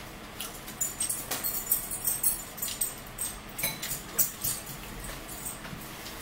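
Irregular short crackles and clicks of things being handled at a dining table: paper towels handled and a paper towel roll picked up, with light clinks of a spoon in a bowl.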